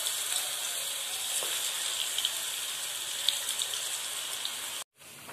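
Onion pakoda batter deep-frying in hot oil in a kadai: a steady sizzle with fine crackling. It cuts off abruptly near the end and comes back fainter.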